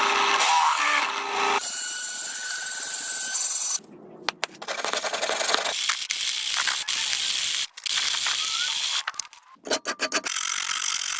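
Workshop tool cutting or working material, a dense gritty noise that comes in several stretches and stops abruptly between them.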